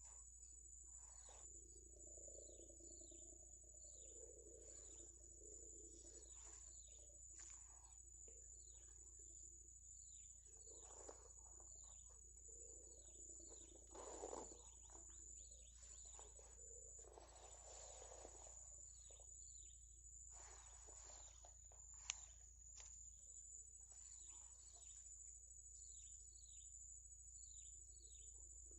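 Faint rural ambience: a steady high-pitched insect drone, with short falling bird chirps repeating every second or so. A single sharp click about 22 seconds in.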